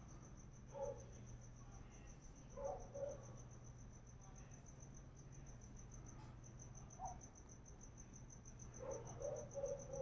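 Cricket chirping steadily at night, an even, high-pitched pulse of several chirps a second, over a low steady hum. A few short, louder, lower-pitched sounds break in about a second in, around three seconds, once near seven seconds and several times near the end.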